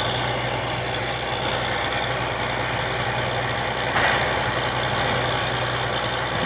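Truck-mounted borewell drilling rig running, its engine giving a steady hum under a dense, continuous machinery noise; a short louder surge of noise comes about four seconds in.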